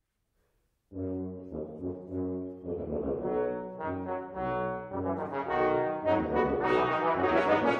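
Brass ensemble of trumpet, French horn, trombone and tuba entering about a second in after a silent pause and playing a Baroque-style passage in short detached notes, the tuba's low line clearly present. The notes grow louder and denser toward the end.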